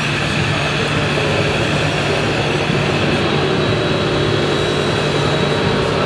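Radio-controlled model trucks running: a steady, even engine-like drone with a faint high whine over it, unbroken throughout.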